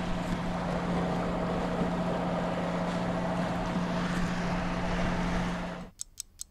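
Sailboat's auxiliary engine running steadily, a constant hum under the rush of wind and water along the hull. Near the end this cuts off suddenly to a clock-ticking sound effect, about five ticks a second.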